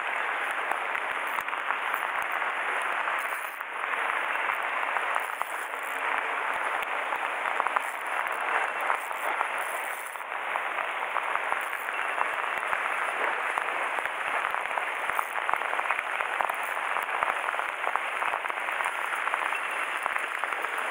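Heavy rain falling: a dense, steady hiss of countless small ticks.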